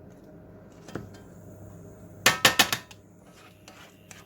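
A metal utensil clanks sharply against a cooking pan about four times in quick succession a little past halfway through, over a faint sizzle of chicken pieces browning in oil.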